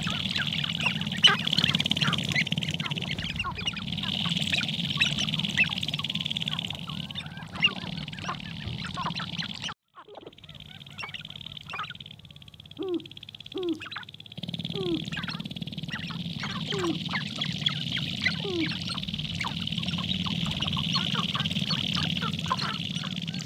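Male sharp-tailed grouse displaying on a lek: many short clucking and cackling calls over a steady rattle from the dancing birds' stamping feet and shaking tail feathers. After a cut about ten seconds in, the chorus thins and a few low, short falling calls stand out, then the full chorus returns.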